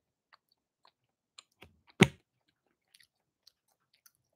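Scattered faint clicks and ticks close to the microphone, with one sharp knock about two seconds in.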